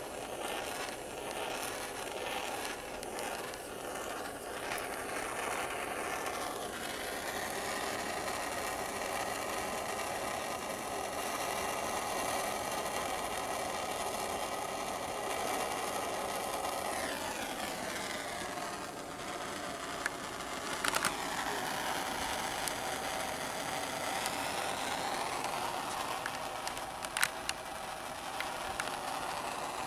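Handheld propane torch burning steadily, a hissing flame playing on a steel axle tube to heat it before welding. A couple of brief clicks come in the last third.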